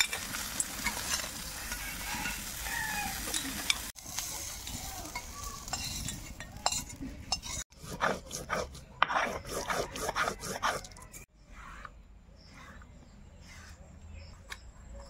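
Hands swishing crab pieces around in a steel bowl of water. Then a stone roller grinds dry chilli and spices on a flat grinding stone (shil-nora) in rhythmic rasping strokes, about three a second. Near the end comes fainter scraping as the paste is gathered on the stone.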